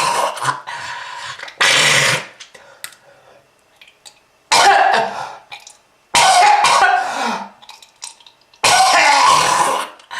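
A person's smoker's cough: about four harsh, hacking coughing fits, a second or two apart, some with a strained rasping voice in them.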